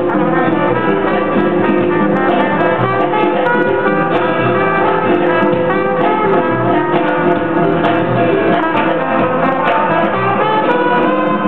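Band music with brass and guitar, playing steadily at an even level.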